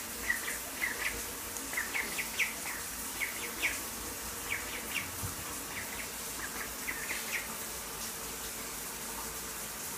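Ducklings peeping: short high peeps in quick runs, thinning out over the last few seconds.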